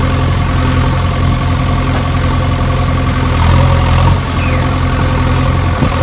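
Battery-powered toy excavator running with a steady engine-like drone, a little louder for a moment about three and a half seconds in.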